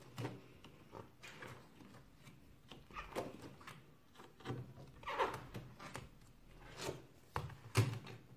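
Paper pages of a spiral-bound workbook being flipped by hand, a short rustle or swish with each turn, and the book then shut.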